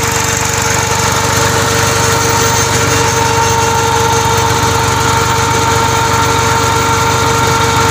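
Massey Ferguson 241 DI tractor's three-cylinder diesel engine running steadily while it drives a PTO alternator that powers a submersible borewell pump. A steady whine rides on top of the engine.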